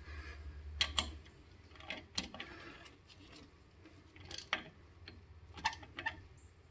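Light metallic clicks and taps, about eight scattered irregularly, with faint scraping between them, as brake caliper hardware is fitted by hand with small tools.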